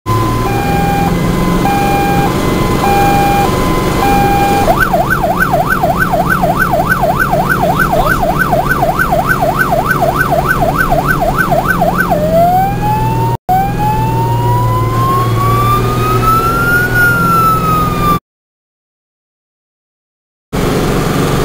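Fire truck's electronic siren heard from inside the cab over the truck's engine hum. It switches from a two-tone hi-lo to a fast yelp of about three sweeps a second, then to a slow rising and falling wail. Near the end the sound cuts out for about two seconds.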